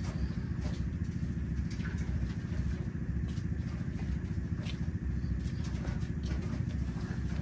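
Asian palm civet growling: a low, steady, pulsing rumble, with a few faint clicks over it.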